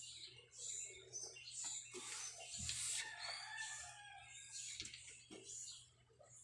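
A rooster crowing in the background, loudest about two to three seconds in, over a run of soft, repeated scratchy strokes.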